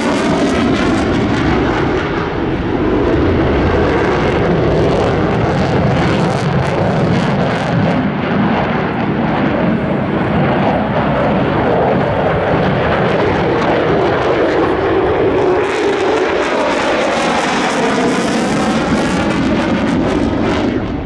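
Mitsubishi F-2 fighter's single F110 turbofan jet engine running at high power in flight: loud, continuous jet noise of the aircraft flying past, with the tone sweeping as it passes near the start and again about fifteen seconds in.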